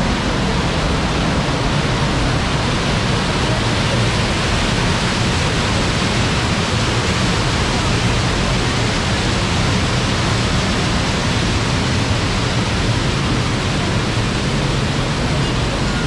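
Waterfall in heavy spate, a large volume of water rushing and crashing over rocks: a loud, even noise with a deep rumble underneath.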